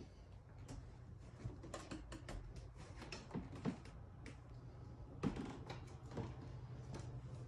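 Footsteps and creaking on old hardwood floorboards: scattered light knocks and short squeaky creaks, the loudest a little past the middle, over a faint steady low hum.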